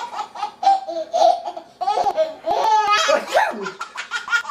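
A six-month-old baby laughing in repeated high-pitched belly laughs and giggles, coming in short bursts.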